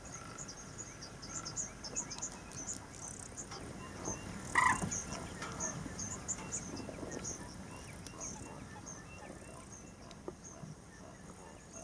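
Natural wetland chorus of birds and insects: many short, high chirps overlapping, with a regular series of short notes at about two a second from about five seconds in. One louder, short call stands out about four and a half seconds in.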